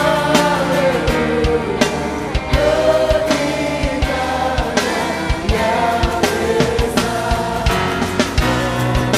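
Live gospel music: singers and a choir over a band, with bass and a steady drum beat.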